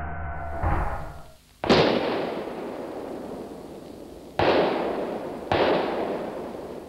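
Four sudden bangs, a smaller one first, then a loud one a little under two seconds in and two more later, each trailing off over a second or two like blasts or fireworks.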